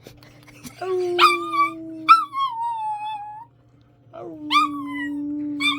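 Dog howling in two long drawn-out 'singing' howls, the first about a second in and the second about four seconds in; each rises sharply at the start and then slides slowly down in pitch.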